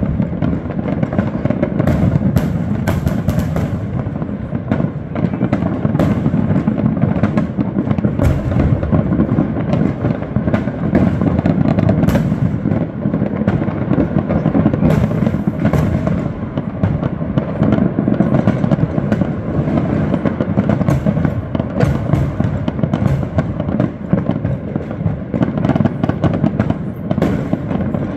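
Many fireworks and firecrackers going off at once in a dense, unbroken crackle and popping, with sharper bangs standing out now and then.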